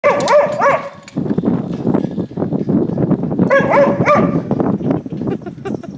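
Dog yipping in two quick runs of a few high-pitched barks, one at the start and another about three and a half seconds in, with rougher, lower scuffling or growling noise between them.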